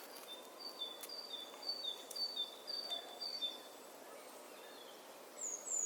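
Faint bird calls over soft background hiss: a repeated high two-note chirp, about two a second, that stops about halfway through, then one falling high whistle near the end.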